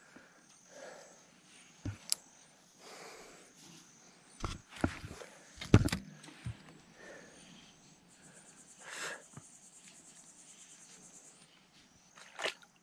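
A person moving through scrub: footsteps and rustling with several short sharp knocks, the loudest about halfway. Insects chirr high and steady behind, with a quick pulsing chirp for a few seconds past the middle.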